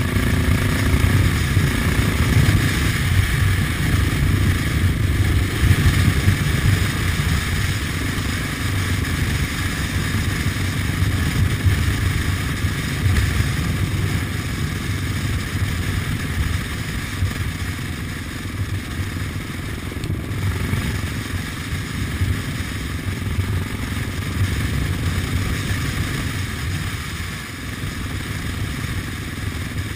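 Kawasaki KLR 650's single-cylinder four-stroke engine running as the motorcycle is ridden along, the engine note shifting up and down in the first few seconds and running steadier and a little quieter after about fifteen seconds.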